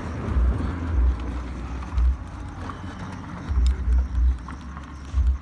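Irregular puffs of air buffeting the microphone as low thuds, about seven in a few seconds, from a charcoal barbecue grill's coals being fanned with a flat board.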